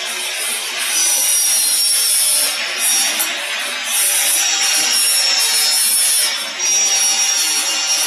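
Shanghai Yanban bottle filling machine running, a steady hissing, rushing noise that swells for a few seconds at a time, with a faint high whine.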